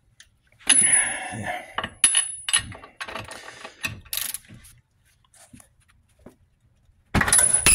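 A socket ratchet wrench working a lug nut loose from a newly pressed-in wheel stud: ratchet clicking and metal-on-metal noise with a thin high squeak as the nut breaks loose, a few more clicks, then a pause. A loud burst of sound starts near the end.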